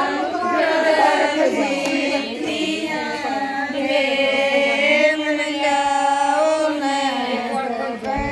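A slow, chant-like song sung by voices, with long held notes; it breaks off abruptly near the end.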